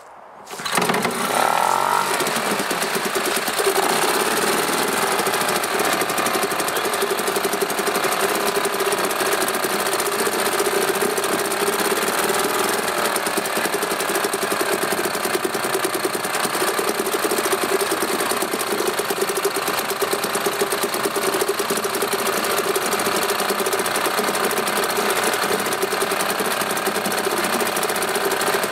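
British Seagull outboard motor's single-cylinder two-stroke engine catching about half a second in after a pull start and running loudly, its speed wavering in the first few seconds before settling to a steady run.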